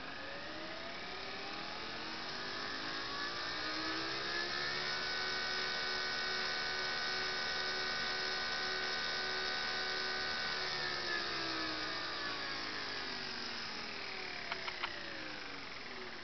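12 V DC motor driven by a Pololu Dual VNH5019 motor shield, whirring as it speeds up over about five seconds, holding a steady pitch, then slowing down again. There are three short clicks near the end.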